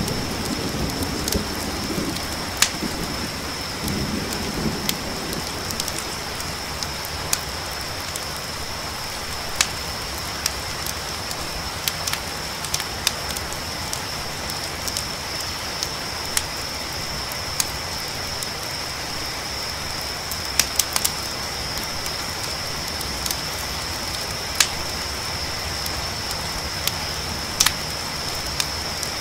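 Mixed night ambience: a steady high trill of crickets over an even hiss of rain, with sharp campfire crackles and pops every second or so. A low rumble of thunder sounds in the first few seconds.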